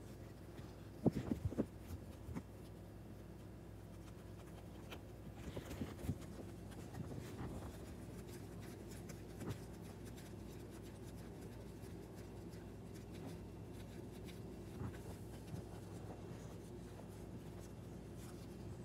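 Hand tools being handled at the outboard: a quick cluster of sharp clicks and knocks about a second in, then light scraping and scattered small clicks, over a faint steady low hum.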